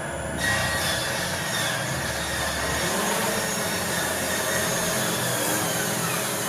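DJI Mavic Pro quadcopter's motors and propellers running with a steady multi-tone whine, drifting a little in pitch now and then.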